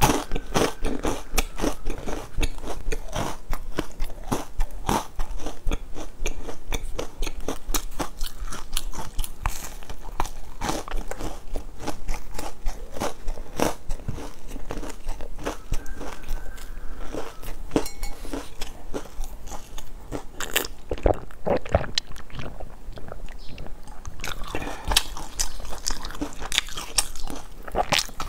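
Close-miked crunching bites and chewing of large hard, dotted bear-shaped biscuits: a steady run of short crunches throughout.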